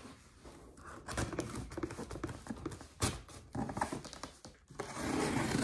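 Hands working a cardboard shipping box: scattered taps, scrapes and rustles on the cardboard and packing tape, with a louder rasping scrape near the end as a blade is drawn along the tape.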